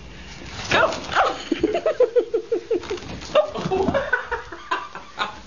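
Puppy whining and yelping: a string of short pitched cries, some sliding in pitch, with a quick run of repeated short yips about a second and a half in.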